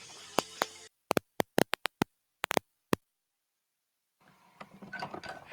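Guitar music from the broadcast cuts off under a second in, followed by a rapid, irregular series of about a dozen sharp clicks over two seconds, then dead silence and faint noise rising near the end.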